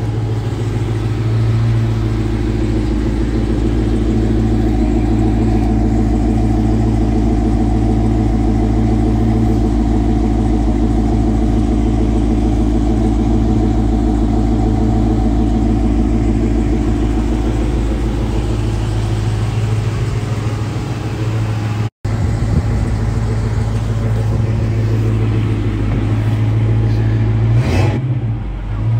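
1972 Chevrolet Chevelle SS V8 idling steadily, a low, even exhaust rumble.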